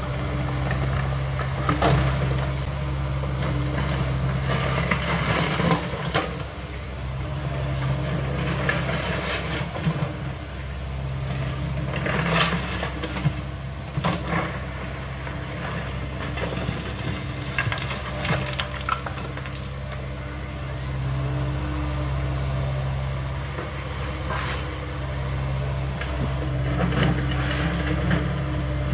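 CAT 307E2 mini excavator's diesel engine running steadily under hydraulic load while it digs, with the bucket scraping and clattering through stony soil at irregular moments, several times.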